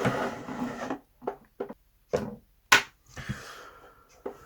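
Handling noise from metal-scaled pocket knives: a rubbing, sliding sound for about a second, then several light clicks and knocks, the sharpest a little past the middle, and a soft rustle.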